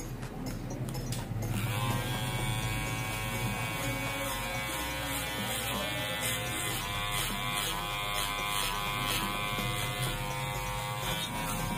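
Electric hair clipper fitted with a 6 mm guard, buzzing steadily as it cuts hair over a comb; the buzz gets louder about a second and a half in.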